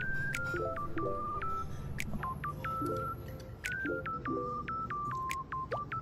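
Background music of short, clear electronic notes over a repeating chord pattern.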